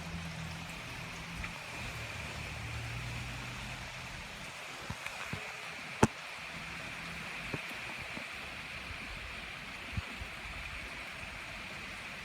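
Strong wind blowing steadily, a continuous rushing hiss, with scattered sharp knocks and clicks. The loudest knock comes about six seconds in. A low hum fades out in the first few seconds.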